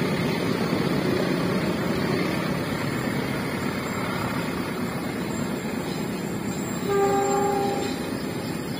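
Freight train of tank wagons running on the rails as it pulls away, its rumble slowly fading. Near the end the locomotive sounds one horn blast lasting about a second.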